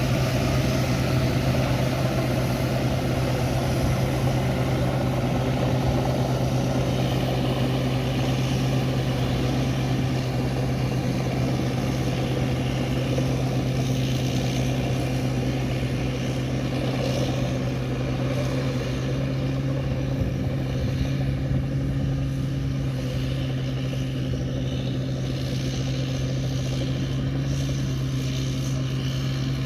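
Engine of a large rice combine harvester running at a steady speed, an even drone that holds throughout.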